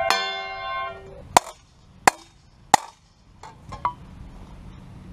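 Hammer blow on a cold steel saw blade resting on an anvil, the blade ringing with a bright metallic tone that dies away over about a second. Then three sharp metal knocks about two-thirds of a second apart, and two lighter knocks near the end. The blows are flattening a warped saw blade.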